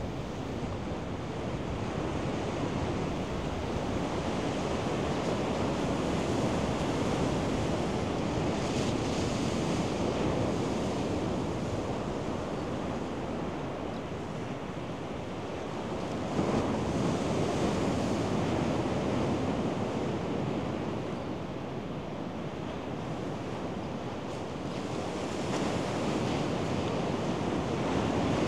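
Surf breaking on a sandy beach: a continuous wash that swells and eases as waves roll in, with a sudden surge a little past halfway through.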